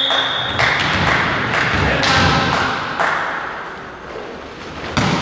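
A volleyball struck by players' hands during a rally: about four sharp thuds roughly a second apart, each echoing in the large sports hall.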